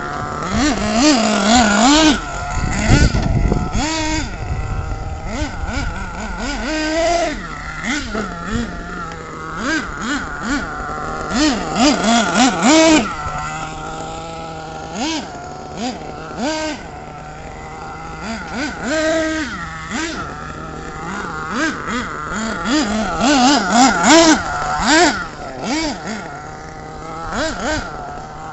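Radio-controlled monster truck's motor revving up and down over and over, its pitch rising and falling every second or so as it is driven, with a low rumble about three seconds in.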